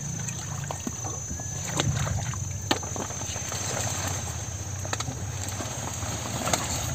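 Water sloshing and water-hyacinth leaves rustling as a person wades through a weed-choked ditch, with a few small knocks and splashes scattered through.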